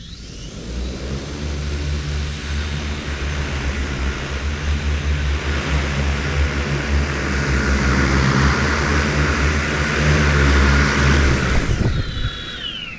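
Large octocopter drone in flight: eight T-motor U8II 100kv motors spinning 28-inch carbon fibre propellers, a loud steady deep hum under a rushing of air that builds gradually. A little before the end the noise drops and a whine falls steadily in pitch as the motors slow.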